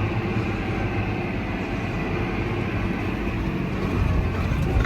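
Tractor engine running steadily under way, a continuous low drone; it grows a little louder about four seconds in.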